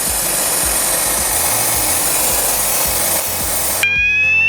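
An aerosol can of test smoke sprays a steady hiss into a smoke detector for about four seconds. Near the end the spray stops and the detector's alarm sounds: a loud tone gliding slowly upward in pitch, showing that the detector has registered real smoke.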